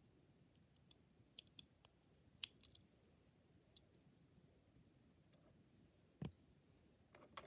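Faint, scattered plastic clicks of Lego Technic beams and pins being handled and fitted together, with a duller knock about six seconds in and a few more clicks near the end.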